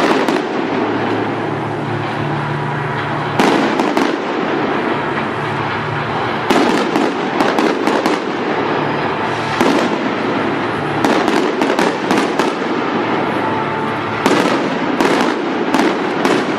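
Aerial fireworks shells bursting overhead: groups of sharp bangs and crackles every few seconds over a continuous noisy background, the first group about three seconds in.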